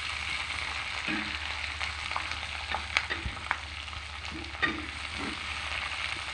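Peanuts sizzling steadily in hot oil in a wok with chilies, shallots and garlic, stirred with a spatula that clicks and scrapes against the wok a few times. The sizzle shows the peanuts are still frying; the cook takes them out once it dies away.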